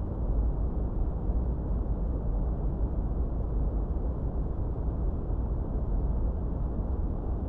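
Steady, unchanging masking noise, deep and dark like brown noise: most of it sits in the low end with little high hiss, and there are no tones, rhythm or events.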